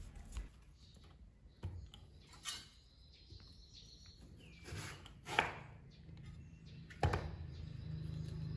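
Kitchen knife cutting into a large gourd on a wooden chopping block: a few separate cutting strokes, the loudest about five seconds in, and a sharp knock of the knife against the block about seven seconds in.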